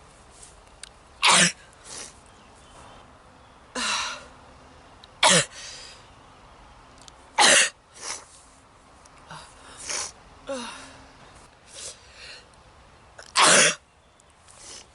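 A person's allergy sneezing attack: about five loud sneezes, irregularly spaced, each dropping in pitch at its end, with quieter sounds between them.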